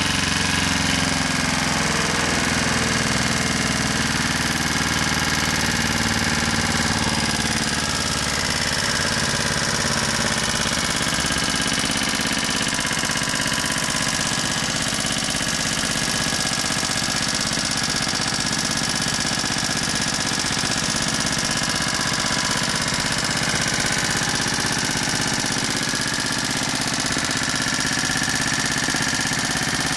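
Honda GXH50 small single-cylinder four-stroke engine running steadily on hydrogen gas from water electrolysis.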